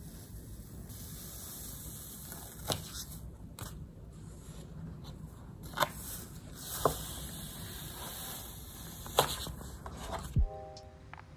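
Glossy sticker sheets and plastic sheeting being handled and rolled on a desk: soft rustling with a handful of sharp crackles and taps spread over several seconds. Soft music begins about a second before the end.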